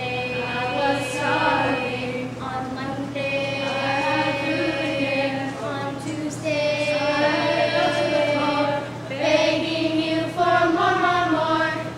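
A group of girls singing together, holding long sustained notes.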